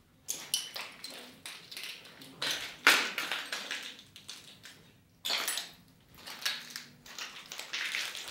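Footsteps crunching and scraping over broken plaster and tile debris on a hard floor, an irregular run of crunches with one sharp crack about three seconds in.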